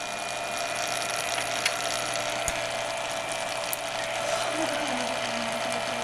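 Mazilli induction heater running: a steady buzzing hum with a constant tone through it and a hiss, broken by a few sharp clicks.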